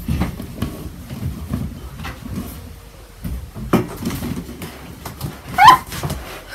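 Phone handling noise: low rumble and rustling of the phone being moved about, with a knock about four seconds in and a short, loud, rising high squeak near the end.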